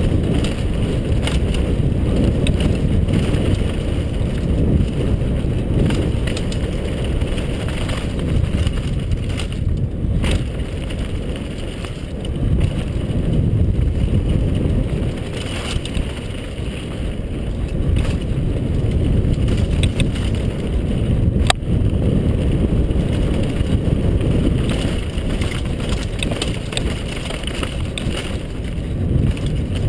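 Wind buffeting the microphone and the rumble of a downhill mountain bike's tyres on a dirt trail at speed, with occasional sharp clicks and knocks.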